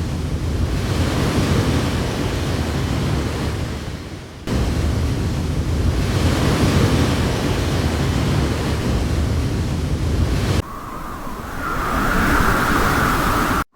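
Storm wind buffeting the microphone with rain: a loud, steady rushing rumble that changes abruptly about four and a half and ten and a half seconds in, the last stretch with a higher hiss.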